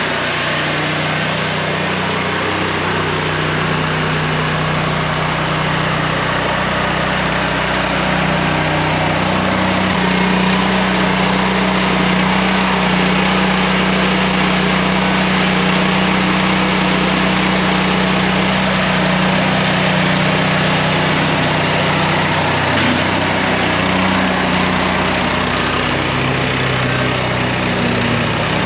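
Engine running steadily and loudly throughout, its pitch and level shifting slightly about ten seconds in.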